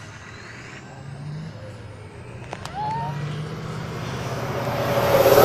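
Off-road competition truck's engine running and drawing steadily louder as it comes close, with a broad rush of noise building up near the end.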